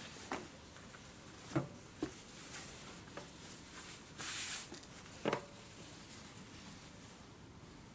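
Cloth being handled on a sewing machine table: a short rustling swish of fabric being slid across, with a few light knocks and clicks.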